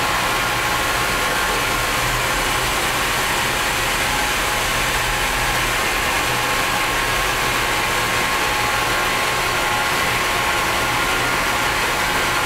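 Hydraulic power unit of a 1018-ton up-acting press running steadily, its motor-driven pumps giving a constant hum with a few steady whining tones, while the press ram lowers back to the open position.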